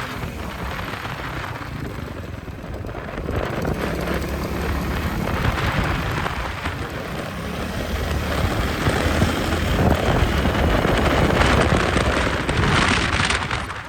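Royal Enfield Meteor 350's single-cylinder engine and exhaust running at cruising speed, half buried under heavy wind rush on the microphone. The rush swells in the second half and is loudest just before the end.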